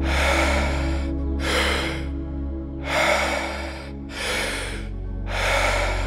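Paced deep breathing: a breath drawn in and let out about every three seconds, at the pace of a Wim Hof warm-up round. A steady, low ambient music drone runs beneath it.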